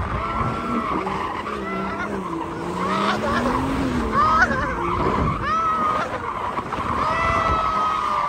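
Car being slid around, its tires squealing in long drawn-out squeals, with the engine revs rising and falling underneath.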